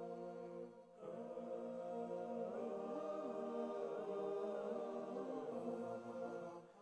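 Soft background vocal music: several voices holding sustained chords with slowly gliding notes. It breaks off briefly about a second in and fades out near the end.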